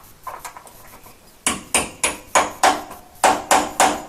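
Hammer driving a hole punch against the worn hinge pin of a classic Mini van's external door hinge, knocking the pin out from below. A few light taps, then from about a second and a half in a steady run of sharp metal-on-metal blows, about three a second, each ringing briefly.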